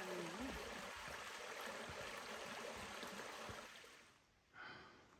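Small rocky creek running over stones, a steady rush of water that fades out about four seconds in.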